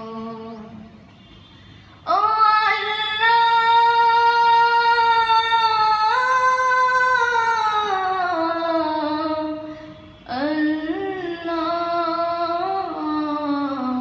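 A boy singing a Bengali Islamic song unaccompanied into a handheld microphone, in long drawn-out phrases. One note is held for about four seconds, steps up, then slides down. There are short breath pauses about a second in and about ten seconds in.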